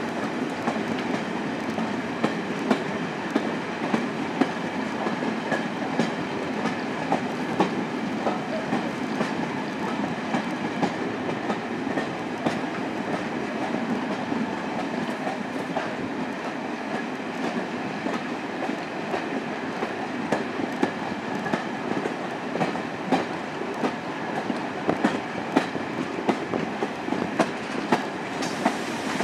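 Passenger train running on a heritage line, heard from an open window of a Mk2 coach. Steady rolling wheel and wind noise, with irregular sharp clicks as the wheels cross rail joints.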